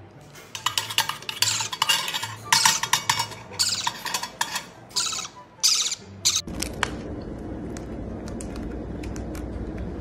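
Hand-fed parrot chick giving loud, raspy begging calls over and over while it gapes for spoon-fed formula, about six calls in six seconds. They stop suddenly and give way to a steady low background hiss with faint clicks.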